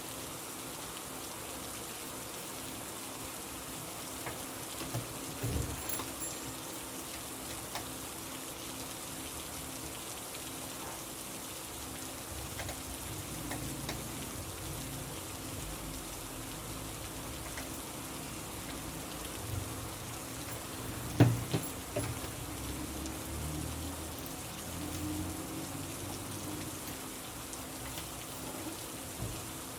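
Steady rain falling, an even hiss throughout. A few soft knocks sound over it, the loudest about two-thirds of the way through.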